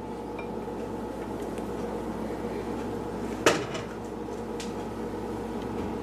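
Kitchen handling noise over a steady low hum: one sharp knock about three and a half seconds in, then a few faint clicks.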